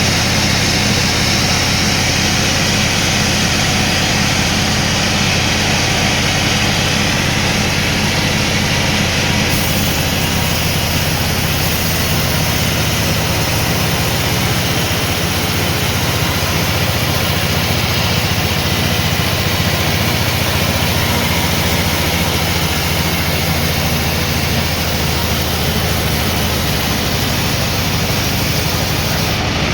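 Sawmill machinery running steadily, a loud engine-like drone with a dense hiss over it.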